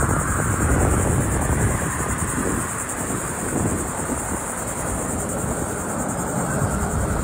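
Helicopter in flight heard from a distance as a low, uneven rumble, over a steady high-pitched insect buzz.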